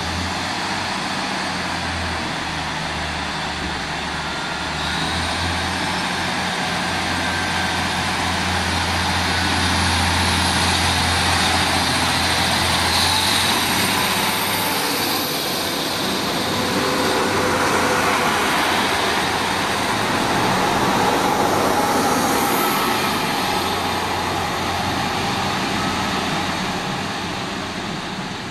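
Three coupled Class 153 diesel railcars pulling away past the platform under power, their underfloor Cummins diesel engines running with a steady low hum over wheel and rail noise. The sound grows louder as the units pass and fades near the end as they draw away.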